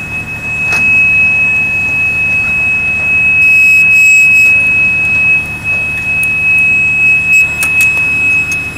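A steady, unbroken high-pitched electronic buzzer tone over a low machine hum, with a few sharp clicks near the end.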